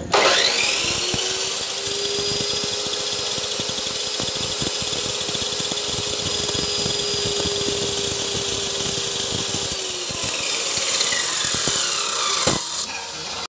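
Abrasive chop saw starting with a rising whine, then running steadily while its cut-off wheel grinds into an iron rod. About ten seconds in the motor's whine falls away as the wheel winds down, with a sharp click near the end.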